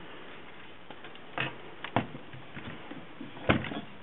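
Byron portable typewriter being turned upside down and handled: a few knocks and clatters of the machine's body, the loudest about three and a half seconds in.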